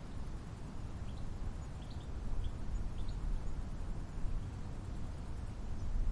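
Faint, short high-pitched bird chirps, about seven in quick succession between one and three seconds in, over a steady low rumble.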